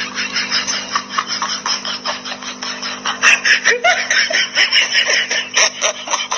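A person laughing in quick breathy bursts, getting louder about halfway through, over a steady low hum.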